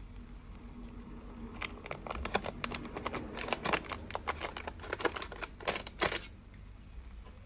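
Plastic spatula scraping and tapping on parchment paper in a metal tray while lifting fried battered apple slices: a quick, irregular run of clicks and scrapes that starts a couple of seconds in and stops sharply near the end.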